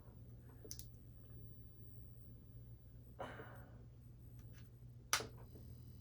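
Quiet handling sounds over a low steady hum: a few faint clicks, a short breath or sigh about three seconds in, and one sharp click just after five seconds, followed by faint high steady tones.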